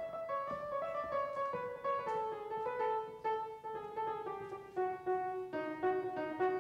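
Background piano music: a melody of single notes, one after another, drifting gradually lower in pitch.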